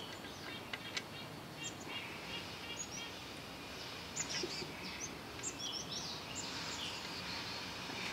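Small birds chirping in short calls that sweep up and down, busier in the second half, over steady outdoor background noise. A few faint clicks come in the first couple of seconds.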